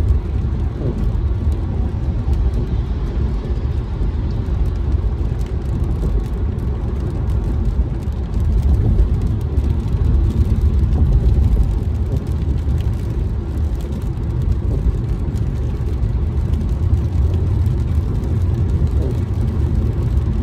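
Steady low rumble inside a car driving on a wet freeway: engine and tyres on rain-soaked pavement, with faint ticking of raindrops on the windshield over it.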